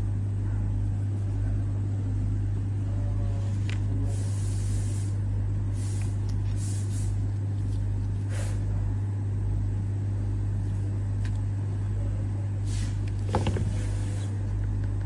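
Pliers working a clasp wire: brief scratchy scrapes here and there and a quick rattle of small clicks about 13 seconds in, over a steady low hum.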